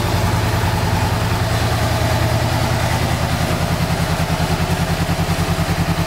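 Honda CB500F's parallel-twin engine idling steadily, with an even, regular pulse.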